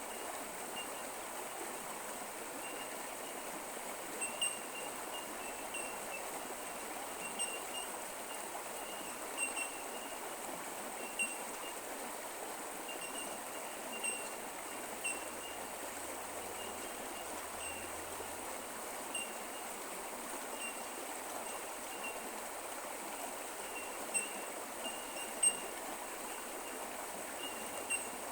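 A bush creek running steadily over rocks. Short high notes and small peaks recur every second or few seconds.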